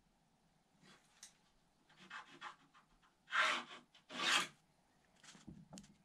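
Pencil scratching on paper, a series of short strokes as lines are drawn, with the two loudest strokes about halfway through.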